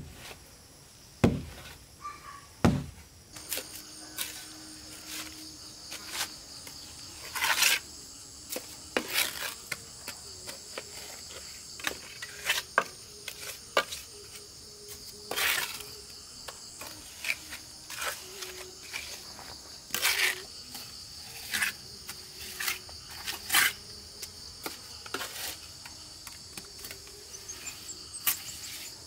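Steady high-pitched insect chirring, coming in a few seconds in, over irregular knocks and scrapes, the sharpest two in the first three seconds.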